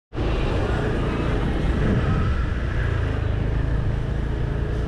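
Steady vehicle and street-traffic noise with a strong low rumble, starting abruptly after a brief cut-out at the very start.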